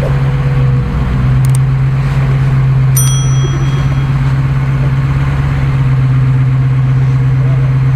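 Ford F-250 pickup's engine running steadily as the truck crawls through deep mud ruts. Two brief high dings come about one and a half and three seconds in.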